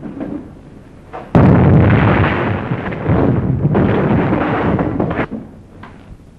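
Thunder from a storm: a sudden crack about a second in, then a loud rolling rumble that swells again midway and dies away near the end.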